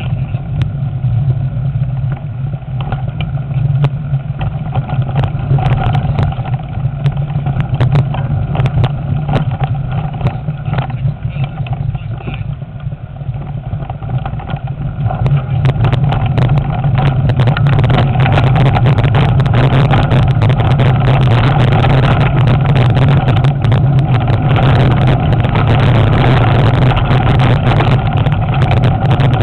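Wind buffeting a bike-mounted camera's microphone during a mountain bike ride, mixed with frequent rattles and knocks from the bike over a rough trail. It gets louder and denser about halfway through.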